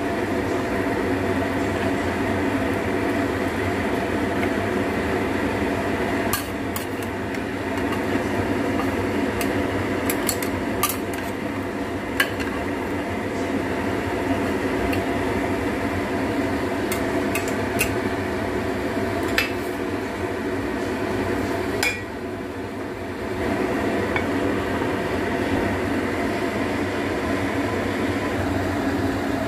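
Scattered sharp clinks and knocks of ceramic against an earthenware clay pot as its lid and utensils are handled, over a steady hum.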